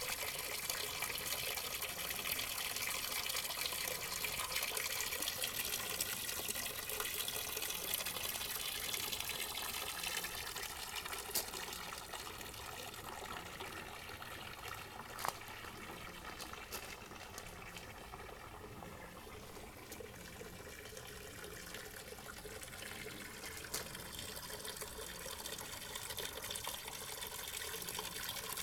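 Water running from a spout into a stone basin: a steady splashing trickle, loudest in the first ten seconds and softer in the middle.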